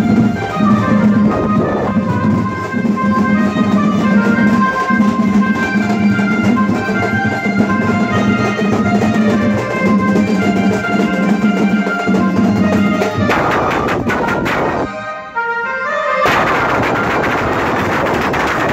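Procession music: large stick-beaten drums pounding a pulsing beat under a sustained melody. About 13 seconds in it changes, briefly drops away, then resumes as a denser, noisier wash of drumming.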